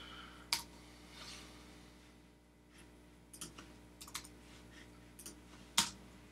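Typing on a computer keyboard: a few scattered keystrokes with pauses between them, two louder clacks about half a second in and near the end, over a faint steady electrical hum.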